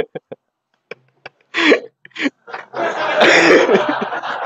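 A few short, indistinct voice sounds, then about two seconds of audience noise: many voices at once in a conference room, with some laughter.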